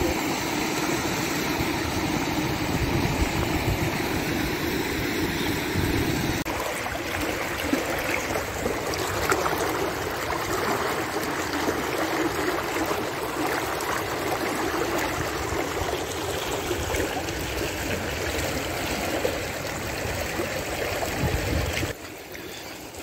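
Muddy flash floodwater rushing down a desert gravel wash, churning over stones in a steady flowing rush. It gets quieter about a second before the end.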